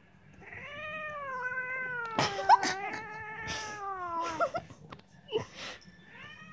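Domestic cat yowling in protest at a clothes peg clipped onto it: one long drawn-out yowl of about four seconds that drops in pitch at its end, then shorter angry calls. A few brief scratchy noises come over the yowl.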